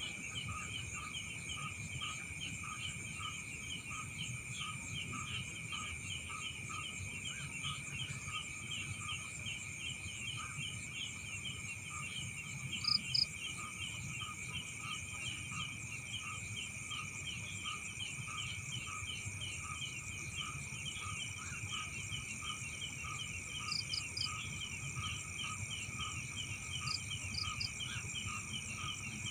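Night chorus of crickets and other insects: steady high trilling with faster ticking over it, and a lower call pulsing about one and a half times a second. A few short high double chirps break in, the loudest about halfway through.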